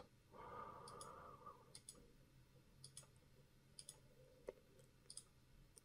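Near silence with a handful of faint computer mouse clicks, spaced about a second apart.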